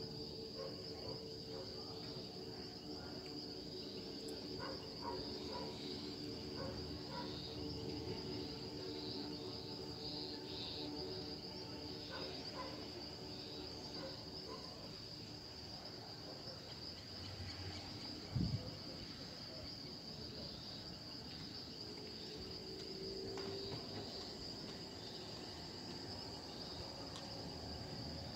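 Steady high-pitched trilling of insects, a continuous outdoor chorus, with one short low thump about two-thirds of the way through.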